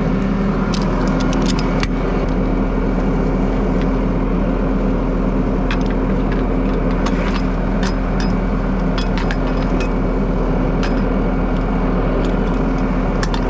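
Flatbed tow truck's engine idling steadily while a wheel strap is ratcheted tight. Sharp metallic clicks and clinks from the ratchet and hooks come in clusters about a second in and again from about six to eleven seconds.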